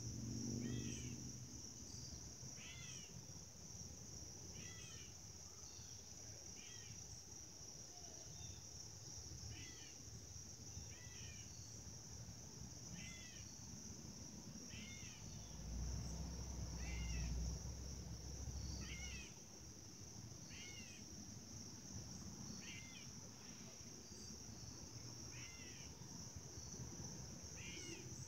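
Evening insect chorus, a steady high trilling of crickets, with a short animal call repeated about every two seconds over it. A low rumble swells about sixteen seconds in and fades some three seconds later.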